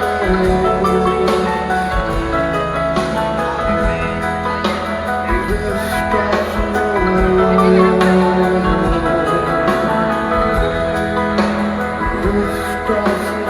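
A live rock band playing a slow song, with long held chords throughout.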